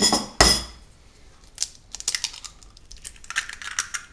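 A raw egg knocked twice against the rim of a plastic mixing bowl and broken open, the shell crackling in a quick run of small clicks as it is pulled apart.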